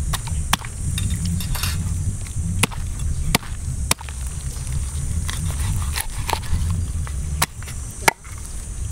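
A large knife chopping into a fish's head at the gills, the blade striking the wooden board in sharp, irregular knocks, about seven in all.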